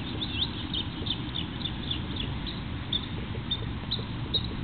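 A small bird chirping: short high calls several times a second at first, then more spaced out, over a steady low background rumble.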